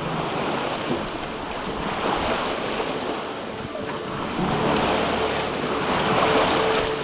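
Ocean water rushing and washing along a sailboat's hull under sail, with wind buffeting the microphone. The rush swells about two seconds in, and again more loudly from about halfway through.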